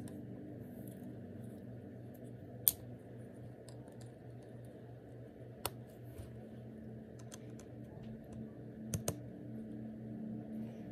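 Plastic K'NEX pieces clicking and rattling as they are handled and fitted together, with a sharp click about two and a half seconds in, another near the middle, and a quick pair of clicks near the end, over a steady low hum.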